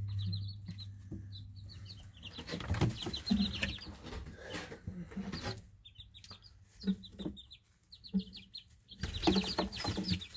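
A group of about three-week-old Easter Egger chicks peeping, with many short high, falling notes coming in quick runs, mixed with scattered rustles.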